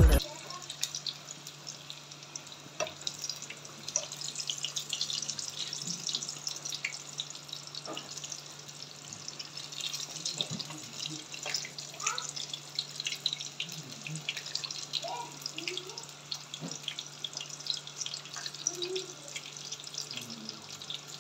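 Samosas deep-frying in a pan of hot oil: a steady sizzle full of small crackles and pops, over a faint steady low hum.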